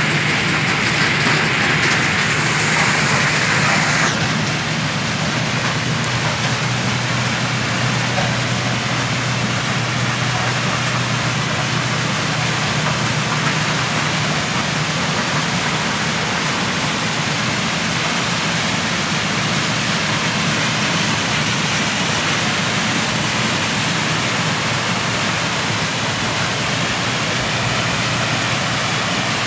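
A 200 TPH stone crusher plant, a jaw crusher with a secondary crusher feeding conveyor belts, running steadily: a loud, even mechanical din over a constant low hum. For the first four seconds a hiss of crushed stone pouring off a conveyor head sits on top of the din.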